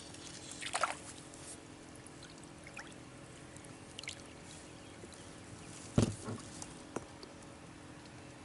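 Light water trickling and dripping at the kayak, with a few small ticks, a sharp knock about six seconds in and a smaller click a second later.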